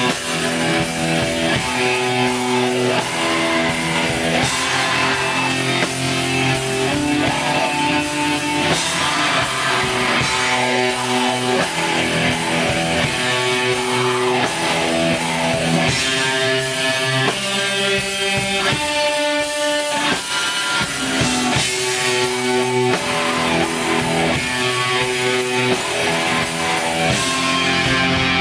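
Black metal band playing live: distorted electric guitars sustaining chords that change every second or two, over a drum kit with a constant wash of cymbals.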